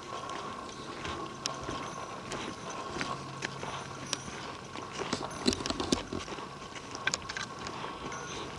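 Footsteps on the forest floor: irregular crunches and clicks, loudest about five to six seconds in.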